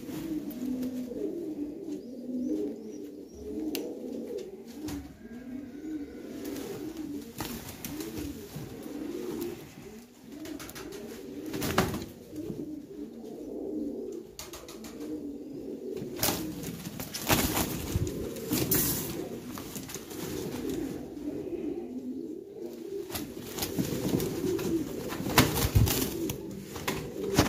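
Domestic pigeons cooing without a break, several low warbling coos overlapping. A few sharp knocks and clicks cut in now and then.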